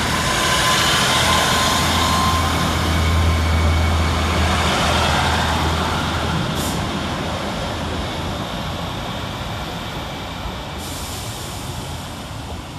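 Class 150 Sprinter diesel multiple unit pulling away from the platform: the underfloor Cummins diesel engines run under power with a deep drone over wheel and rail noise. The sound is loudest over the first few seconds, then fades steadily as the train draws away.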